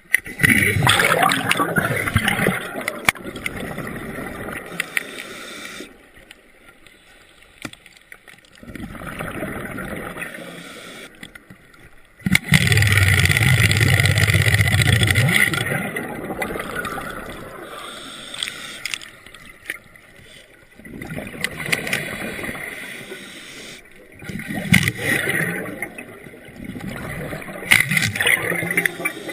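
Underwater recording of air escaping as rushing, bubbling bursts lasting a few seconds each, separated by quieter gaps. The loudest and deepest burst starts about twelve seconds in and lasts about three seconds.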